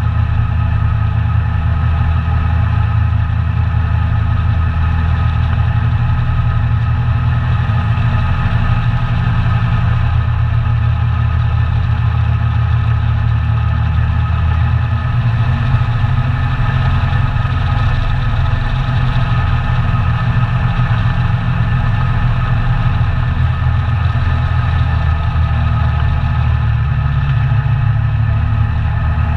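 ATV engine running continuously, its pitch shifting now and then.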